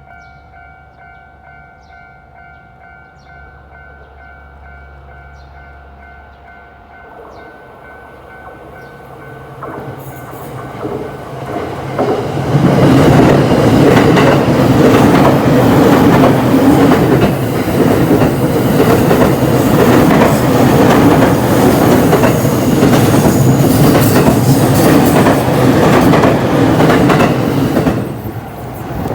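Japanese railway level-crossing alarm ringing its steady electronic bell, then a train approaching and passing through the crossing at speed, loud and with wheels clattering over the rail joints. The passing train drops away suddenly near the end.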